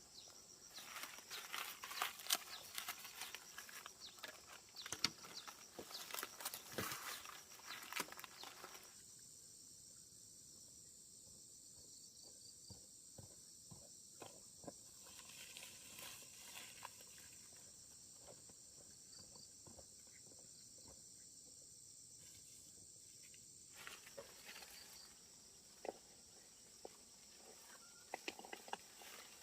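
Rustling and crackling handling noises, dense for the first nine seconds or so and again briefly near the end. Under them runs a steady high insect drone, which is left almost alone in the middle stretch.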